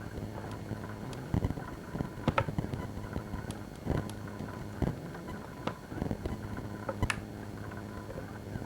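Handling noise from a camcorder's hard plastic body: scattered clicks and knocks, about six, at irregular intervals, over a steady low hum.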